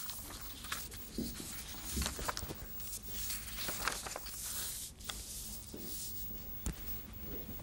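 Room noise from a live studio microphone: a steady low hum with scattered small clicks, knocks and rustles, like desk and paper handling.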